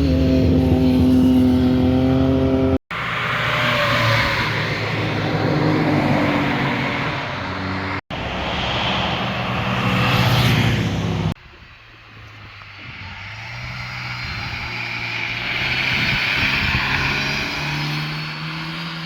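Cars driving past one after another in short clips joined by abrupt cuts: first a loud exhaust holding a steady note, then cars accelerating past, then a quieter car approaching with its engine note rising near the end.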